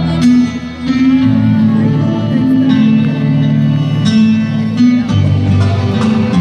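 Dance music with a plucked string instrument over sustained bass notes that change pitch every second or so.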